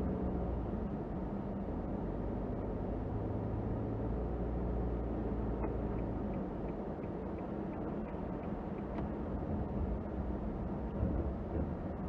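Inside a car driving on a snow-covered road: a steady low engine hum with tyre and road noise. A run of faint, regular ticks, about four a second, comes partway through.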